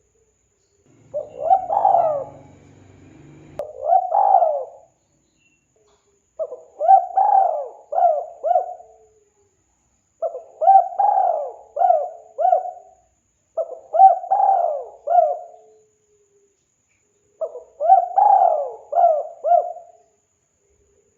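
Spotted dove (tekukur) cooing: about six phrases of three or four short, bent coos, each phrase a couple of seconds long, with gaps of one to two seconds between them. This is the bird's call as used for a lure call.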